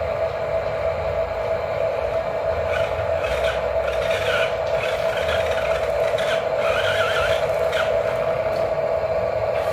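Small electric motor and gearbox of an RC articulated dump truck whining steadily as it drives slowly, with short higher squeaks coming and going through the middle.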